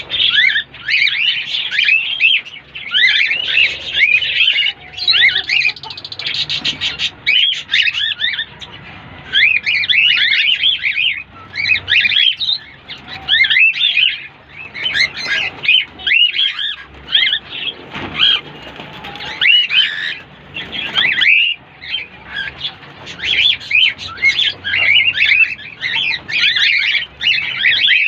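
Cockatiels chirping: a continuous run of short, high chirps and whistles, one after another with only brief gaps.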